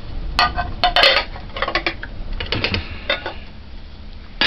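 China plates and a ceramic bowl clinking and clattering against each other as they are handled and set down: a string of sharp clinks over the first three seconds, then one more near the end.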